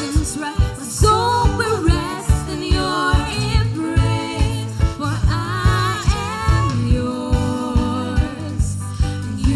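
Live gospel worship band performing: a sung voice with wavering, held notes over a steady drum beat.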